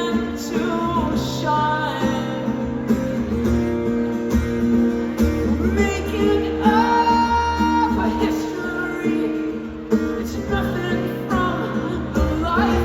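Live band performance of an emo rock song: singing over strummed guitars.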